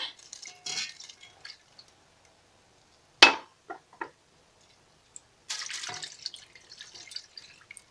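Water poured from a drinking glass into a metal roasting pan, in two pours about four seconds apart. Between them comes a sharp clink, then two lighter clicks.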